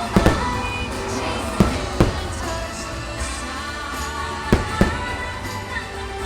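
Fireworks bursting in three quick pairs of sharp bangs, near the start, about two seconds in, and near the end, over the show's music soundtrack playing steadily.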